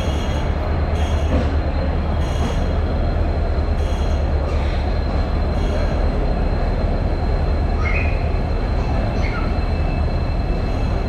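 Passenger train running on the rails: a steady low rumble, with short high-pitched wheel squeals repeating every second or so and a few shorter squeaks later.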